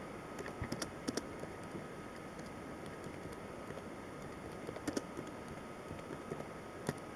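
Typing on a computer keyboard: faint, irregular key clicks over a low steady hiss.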